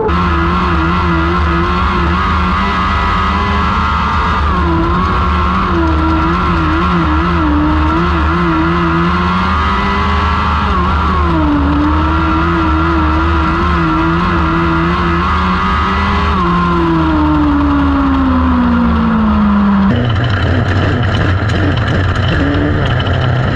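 1000cc motorcycle-engined micro sprint cars racing on a dirt oval, the engine note rising and dipping again and again as the throttle is worked through the turns. About three-quarters of the way in the note falls steadily as the car slows, then the sound cuts to a rougher, wind-like noise.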